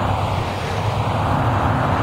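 Street traffic noise, steady, with a city bus passing close by.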